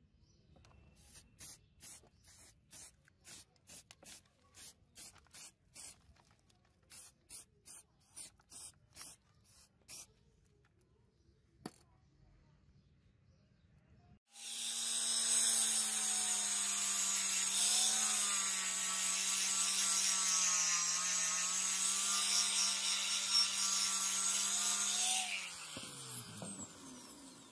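About twenty short hissing bursts, two or three a second, over the first ten seconds, from an aerosol spray can. About fourteen seconds in, an electric power tool starts abruptly and runs steadily with a whine and hiss for about eleven seconds, then winds down with falling pitch near the end.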